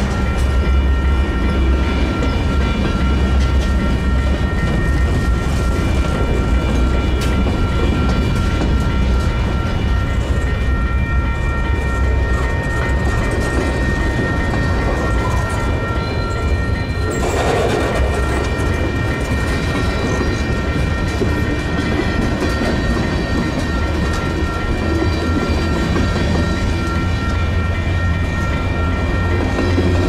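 Union Pacific freight train's cars rolling past close by: covered hoppers, a flatcar and tank cars rumbling over the rails, with a heavy steady low rumble and several steady high ringing tones held over it.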